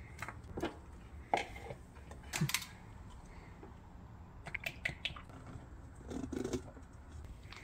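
Scattered light clicks and knocks of plastic parts being handled: the engine's oil filler cap coming off, a funnel set in place and a bottle of motor oil opened and poured into the funnel.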